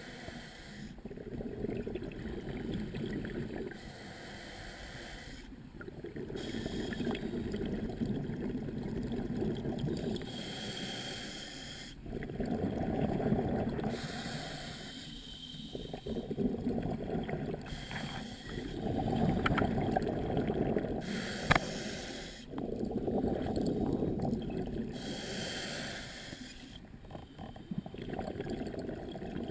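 A scuba diver breathing through a regulator underwater, heard through the camera housing: bubbly, rumbling exhalations of a few seconds each alternate with shorter hissing inhalations, about six breaths in all. A single sharp click comes about two-thirds of the way through.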